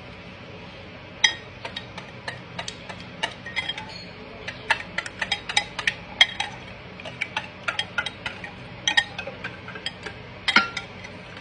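A utensil clinking irregularly against a mixing bowl while stirring batter, starting about a second in with a quick run of sharp clinks.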